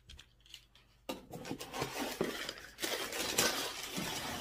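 Packing material in a cardboard box rustling and crinkling as hands dig through it, with small clicks and knocks. It starts about a second in after a near-quiet moment.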